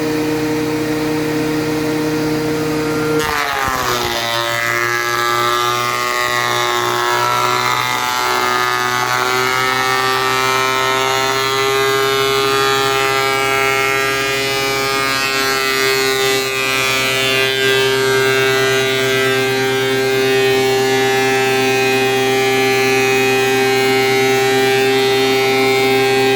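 DeWalt DW735 thickness planer running with a steady whine. About three seconds in, a board feeds into the cutterhead: the pitch drops suddenly under the load, then climbs back gradually over several seconds and holds steady while it keeps planing.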